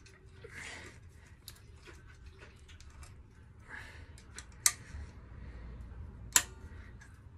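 Pliers clicking and scraping on metal as a stuck rubber rear-shock bush is worked off its mounting pin, with two sharp clicks about four and a half and six and a half seconds in.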